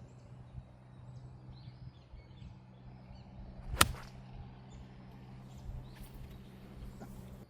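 A golf club strikes a ball once, a sharp crack about four seconds in, over a steady low hum and faint bird chirps.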